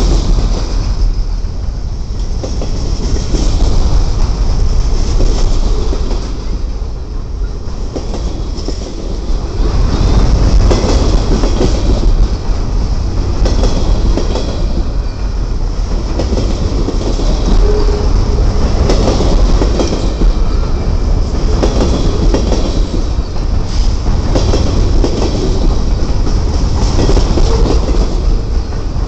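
Freight train of loaded trash containers on flatcars rolling past: a steady rumble of steel wheels on rail with rhythmic clickety-clack as the wheels cross rail joints.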